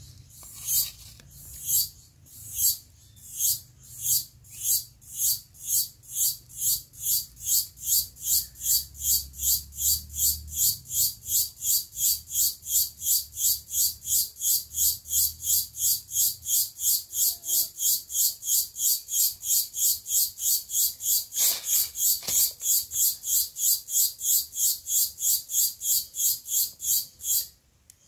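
An insect calling in a long run of short, high, buzzy pulses, a little more than two a second, speeding up at first and then holding an even beat before stopping abruptly near the end. Two soft clicks of sticks being handled come about two-thirds of the way through.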